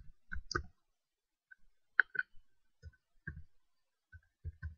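Computer keyboard keys clicking as numbers are typed: a quiet, irregular run of single keystrokes, about ten in all.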